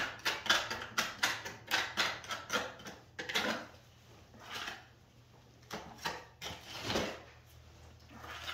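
Small steel trowel scraping Structolite base-coat plaster into wood lath in quick, short strokes, several a second, while the scratch coat is pressed in tight to key behind the lath. After a quieter stretch, more scraping comes as plaster is scooped from a plastic bucket.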